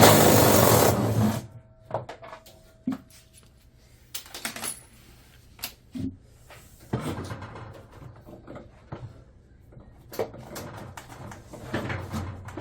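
Repair-work sounds from taking apart a drum washing machine. A loud burst of noise about a second and a half long comes first, then scattered knocks and clicks of tools and parts being handled.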